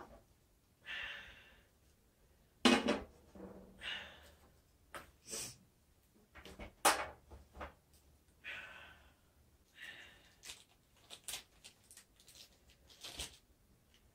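Scattered clicks and knocks, the loudest about three seconds in, with a few soft breathy hisses about a second long in between.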